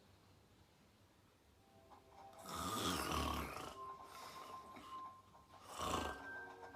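A woman snoring in her sleep: a long snore begins about two and a half seconds in, and a shorter one follows near the end.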